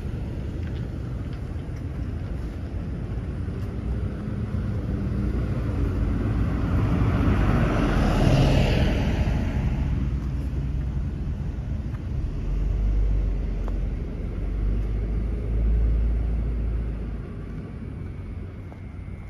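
A vehicle passing by: a broad rush of road noise swells to a peak about eight seconds in and fades within a couple of seconds. A low rumble follows near the middle, over steady outdoor background noise.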